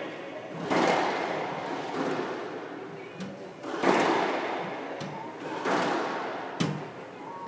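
Squash rally: the ball cracking off rackets and the court walls, four loud strikes and a few lighter ones spaced one to three seconds apart, each ringing on in the echoing court.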